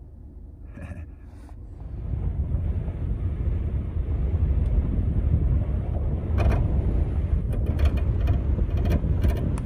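A car driving on a gravel road, heard through a phone held out of the window: wind buffeting the microphone and a low rumble from the tyres on gravel start about two seconds in, with scattered sharp clicks in the last few seconds.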